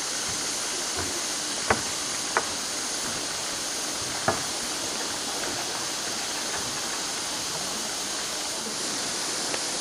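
Steady rush of a stream flowing among rocks in a ravine, with three short sharp clicks in the first half.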